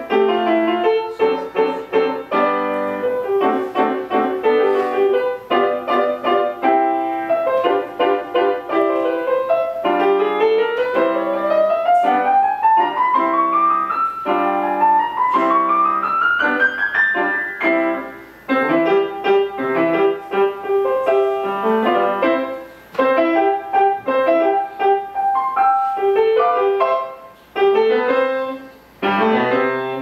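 Grand piano played solo, a busy stream of notes with two long rising runs up the keyboard about ten and fifteen seconds in, and a few brief pauses between phrases near the end.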